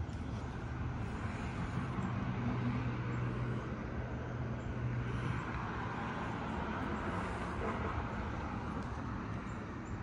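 Traffic noise from a nearby road, with a low engine hum for a few seconds that stops about five seconds in.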